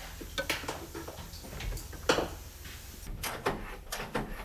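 Irregular clinks and knocks of hand tools and sockets on metal, with the strongest knock about two seconds in and a cluster of clicks near the end.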